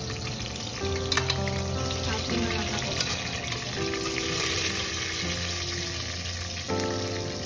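Cumin seeds and bay leaves sizzling in hot oil in a pot as they are stirred, a steady frying hiss. Background music plays over it.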